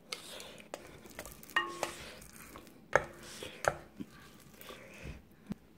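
A plastic rice paddle and chopsticks scrape and tap against the coated inner pot of a Cuckoo electric rice cooker, working loose the crust of cooked sweet rice stuck to the bottom. The sound is scattered clicks and scrapes, with two knocks that ring briefly, about a second and a half in and about three seconds in.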